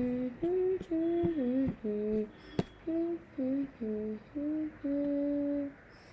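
A person humming a short tune, about ten notes with gaps between them, the last held for nearly a second. A single sharp click about two and a half seconds in.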